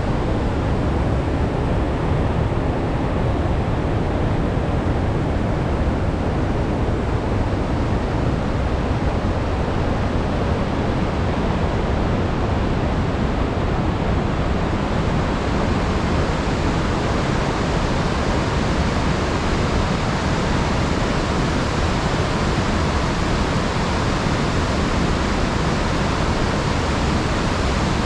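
Sugar River waterfall: a steady, loud rush of falling water. About halfway through, the higher hiss of the spray grows stronger.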